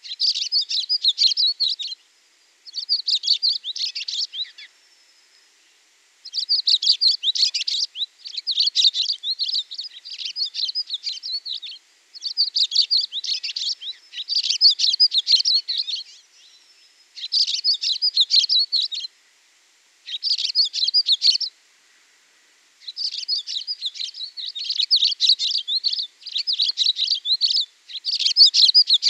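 Songbird singing: quick, twittering chirp phrases of about two seconds each, repeated over and over with short pauses between them.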